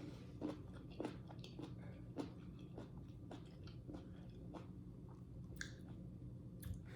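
A person chewing fresh fruit close to the microphone: a run of small, irregular mouth clicks and soft bites, roughly one or two a second.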